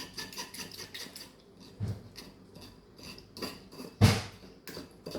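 Kitchen utensils clicking and tapping against dishes in quick, light strokes, with a louder knock just before two seconds in and the loudest one about four seconds in.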